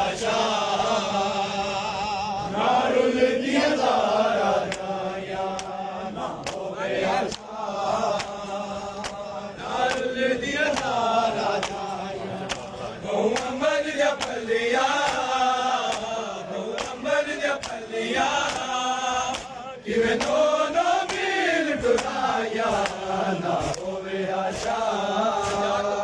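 A noha chanted by men's voices in long, wavering phrases that rise and fall, over the steady, sharp slaps of many hands striking bare chests in matam.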